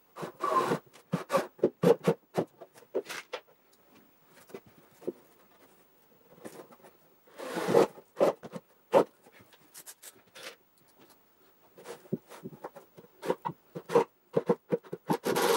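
Workshop handling noises from assembling a plywood box: irregular short scrapes, clicks and knocks in clusters, with a longer scrape about halfway through and quieter gaps between.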